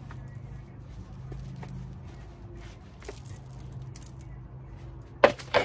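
Plastic nursery pot handled upside down as a tomato plant's root ball is eased out of it: soft scrapes and rustles of soil and plastic, with two sharp loud knocks near the end. A low steady hum sits underneath.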